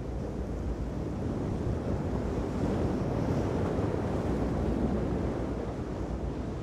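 Wind buffeting the microphone over the rush of choppy sea and breaking surf: a steady noise, heaviest at the low end and a little louder in the middle.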